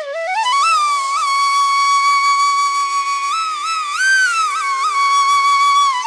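Background music: a flute-like melody that climbs in steps, holds a long note, then bends higher with a few quick ornaments before settling back on the held note, over a faint steady drone.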